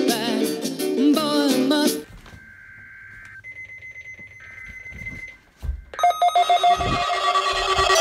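Music stops about two seconds in, and faint high electronic tones follow. About six seconds in, a weather alert radio's alarm starts sounding loudly and steadily, set off by a Required Weekly Test broadcast.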